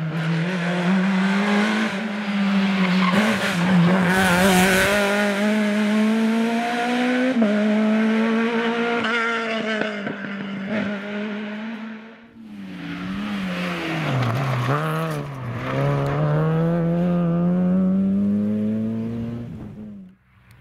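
Rally car engines at full stage pace. The first car revs hard out of a hairpin and pulls away through the gears. After a brief drop, a second pass has revs falling and rising several times, as under braking and downshifts, then climbing steadily as the car accelerates away and fades.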